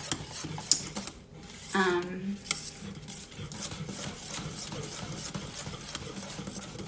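A whisk stirring batter in a stainless steel mixing bowl, making irregular clicks and scrapes of metal on metal. A brief vocal sound comes about two seconds in.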